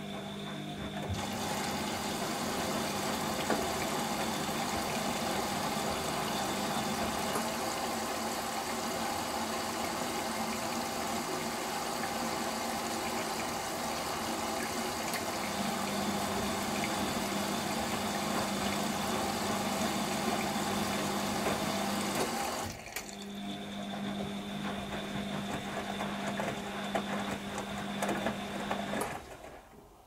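Bosch Maxx 5 washing machine in its wash cycle: the drum motor hums as it tumbles the wet laundry, while water rushes in, most likely the wash fill. The rushing cuts off suddenly about three quarters of the way through. The drum turns on with sloshing for a few more seconds, then stops near the end.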